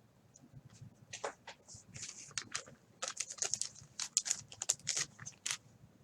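Trading cards and plastic card holders being handled on a table: a quick run of light clicks and rustles, sparse at first and denser from about halfway.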